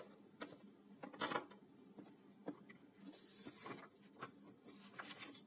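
Light clicks and taps with brief rubbing from a small plastic-and-metal smartwatch being handled by hand, with a sharper click about a second in.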